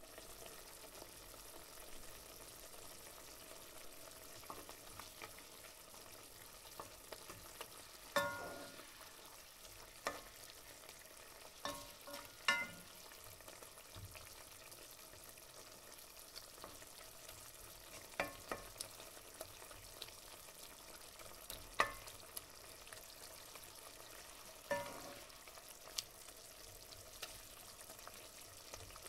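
Tuna frying in oil in a stainless steel pan, a faint steady sizzle, with a utensil striking the metal pan with a short ringing clink about six times while stirring.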